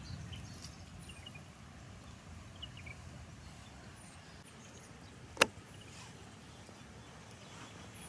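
Outdoor ambience: a steady low background noise with faint, scattered high chirps, and a single sharp knock about five and a half seconds in.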